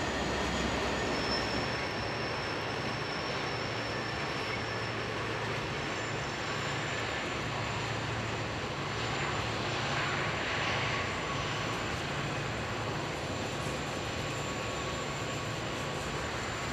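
Freight cars of a long train rolling steadily past on the rails: an even rumble of wheels and cars, with faint high-pitched whines over it.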